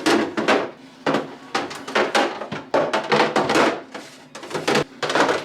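Repeated knocks and clatter as washed plastic containers and produce are put back into a refrigerator, a sharp hit every half second or so.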